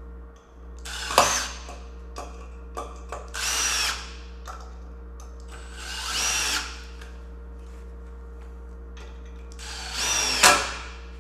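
Power drill driving 3-inch deck screws into the kayak rack's lower arm supports, in four short runs of motor whine a few seconds apart, with a sharp click near the start and another near the end.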